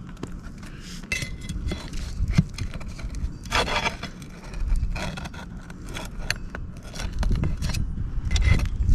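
Metal tool scraping and clicking against asphalt roof shingles as nails sunk too deep are worked loose and pried out, with a louder scrape about three and a half seconds in.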